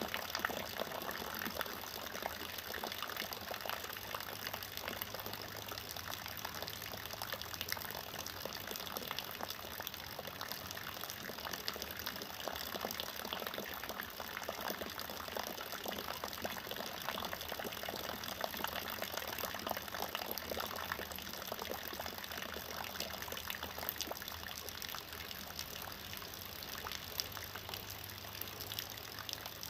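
A steady stream of water splashing into a shallow muddy puddle: an even, unbroken rush made of many small splashes.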